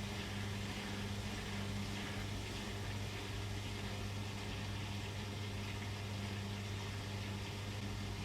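Beko WM6255W washing machine running steadily, its motor giving an even hum with a broad whirring hiss over it, without pauses or changes.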